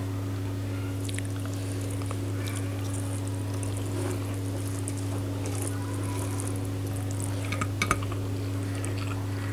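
Faint wet clicks and smacks of eating curry and rice by hand, over a steady low electrical hum, with a few sharper clicks about eight seconds in.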